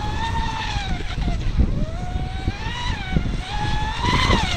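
RC speedboat's Surpass Hobby 3670 2260kv brushless motor whining as the hull runs at speed on a 40 mm propeller. The pitch rises and falls with throttle and turns, and dips sharply near the end. A low rumble of wind on the microphone runs underneath.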